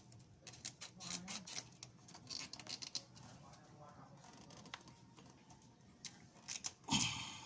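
Irregular clicks, taps and scrapes of hand work on a car's fuel lines, with a louder knock about seven seconds in.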